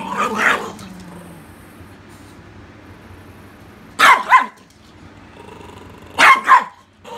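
A puppy's high-pitched barks in two quick pairs, one about four seconds in and one near the end.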